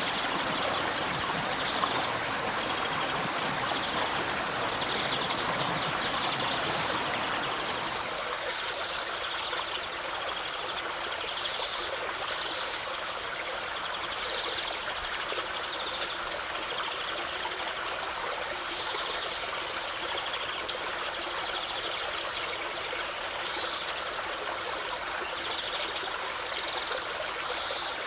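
River water running steadily, a continuous rushing flow. About eight seconds in the deeper part of the sound drops away and it turns lighter and more trickling.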